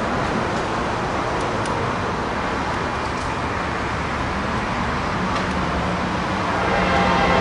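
Steady rumble of an approaching diesel-hauled freight train, not yet in sight. It grows louder near the end as a low engine hum comes in with the lead locomotive nearing the crossing.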